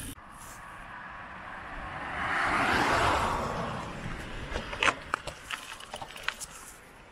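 A car passes by, its road noise swelling and fading over about two to three seconds. Scattered sharp clicks and rattles follow.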